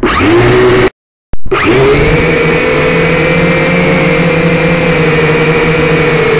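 Syma drone's electric motors and propellers whining steadily, heard close up through the drone's own camera microphone as it takes off and climbs. The whine rises in pitch at the start, drops out for about half a second about a second in, then comes back and holds at a steady pitch.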